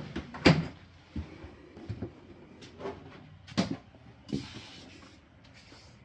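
Wardrobe door in an RV bedroom being swung shut with a sharp clack about half a second in, followed by a string of lighter knocks and clicks, another sharp clack a little past the middle, and a short rustle.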